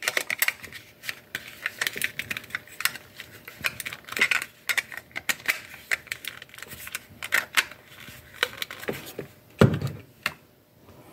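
Irregular clicks and light rattles from a black plastic lithium battery pack and its wires being turned over and handled, with a louder dull bump near the end.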